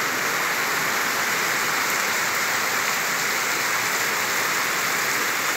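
Heavy rain falling steadily on a flooded street, an even hiss of water on water that does not let up.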